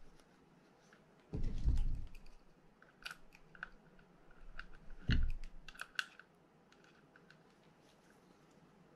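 Small clicks and taps of metal and plastic parts of a Penn Spinfisher 750SSM spinning reel being handled and fitted onto the rotor, with two dull thumps, one about a second and a half in and one about five seconds in.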